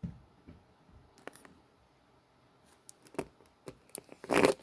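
Flip phone handled and its keypad buttons pressed to power it off: a few scattered small clicks, with a short burst of handling noise near the end. No power-off tone is heard.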